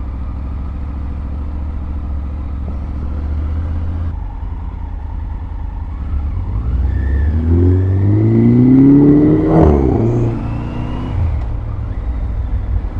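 Vehicle engines running steadily in traffic, then an engine revving up, rising in pitch for about three seconds, about two-thirds of the way in, with a short sharp crack as it peaks.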